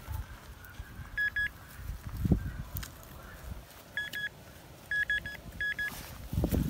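A handheld metal-detecting pinpointer beeps in quick pairs of short, high beeps, four times, as it is probed into the dig hole over a metal target. A dull thump of soil being dug is heard about two seconds in.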